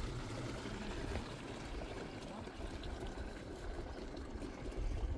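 Water pouring in a steady stream from a plastic jerrycan.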